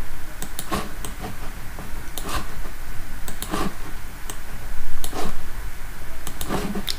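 Computer mouse clicking: a run of irregular, short clicks as the pointer picks tools and draws, the loudest about five seconds in, over a steady low hum.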